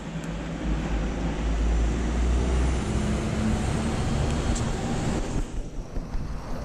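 Lorry engine and tyres crossing a road bridge: a low rumble with traffic hiss that swells from about half a second in and drops away about five and a half seconds in.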